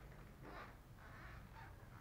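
Near silence: quiet room tone with a couple of faint soft rustles.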